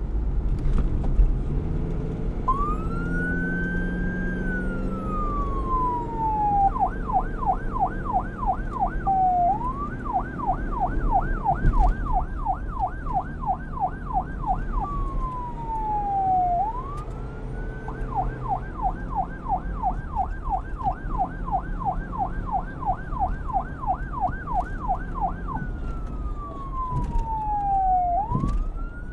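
Electronic police siren switching between a slow wail, rising and falling over a few seconds, and a fast yelp of about four warbles a second, with a low rumble underneath.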